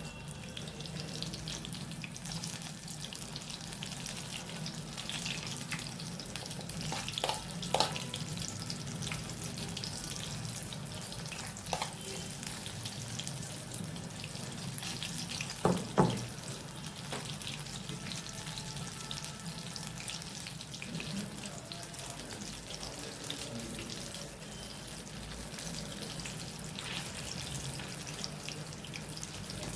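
Corn pakora batter deep-frying in hot oil, a steady sizzling and crackling. A few sharp knocks sound over it, the loudest about sixteen seconds in.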